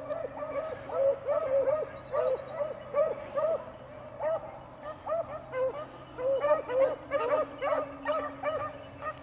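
A pack of beagles baying on a rabbit's trail: short arched bawls and chop barks from several hounds at once, a few a second, coming thicker in the second half.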